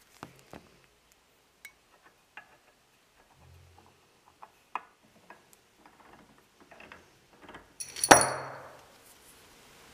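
Scattered light clicks and taps from handling the aluminium gearbox housing and its parts. About eight seconds in comes one loud metallic clank that rings briefly.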